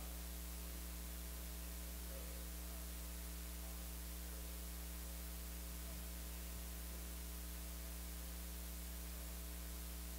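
Steady electrical mains hum on the microphone line: a low constant hum with a stack of higher buzzing overtones and a hiss over it, unchanging throughout.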